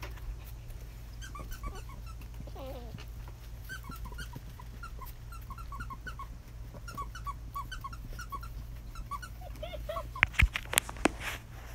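Six-week-old German Shepherd puppies yipping and whining in quick, short, high squeaks as they play. A few sharp knocks come near the end.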